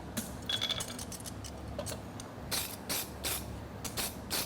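Hammer striking a steel horseshoe on the anvil: a handful of separate blows at uneven intervals, one ringing briefly about half a second in. Behind them runs the steady hum of a Portacool evaporative cooler fan.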